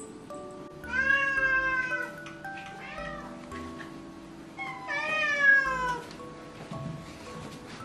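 A cat meowing twice: two long meows about four seconds apart, the second rising and then falling in pitch, over background music.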